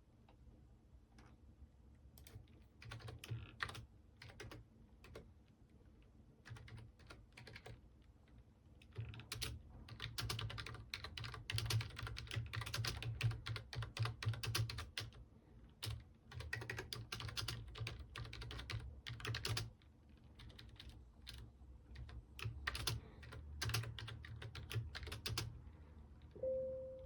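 Typing on a computer keyboard: scattered keystrokes at first, then fast runs of key clicks with short pauses between them, the densest run in the middle. A brief steady tone sounds at the very end.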